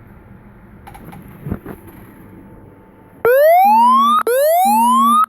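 Anti-theft alarm of the 'Don't Touch My Phone' app going off through the phone's speaker after a little handling noise: the phone has been picked up while armed. It is a loud siren of rising whoops, about one a second, starting a little past the middle.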